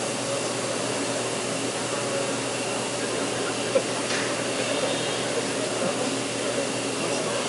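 Steady whirring hum of a robotic press-brake cell as the robot arm carries a large sheet-metal part, with one sharp click a little past the middle.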